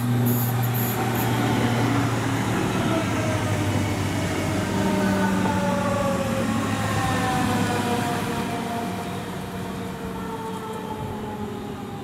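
DB Class 425 electric multiple unit passing close by, with a whine of several tones from its traction equipment gliding slowly downward over the rolling noise of the train.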